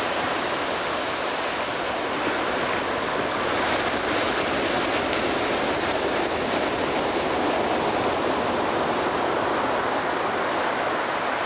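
Ocean surf breaking on a sandy beach, heard as a steady, even wash of noise with no single wave standing out.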